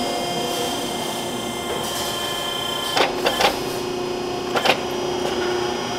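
Hydraulic tube bender running with a steady hum as it bends exhaust tubing, with three sharp clicks about halfway through and two more a second and a half later.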